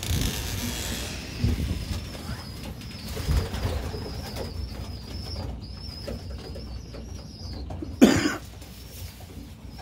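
A flock of loft pigeons cooing, with a faint high wavering call throughout. A few low thumps come in the first few seconds, and one short, loud, sharp flutter or knock about eight seconds in.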